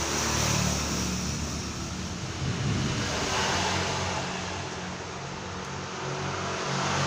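Steady low mechanical hum under an even hiss, from a running motor.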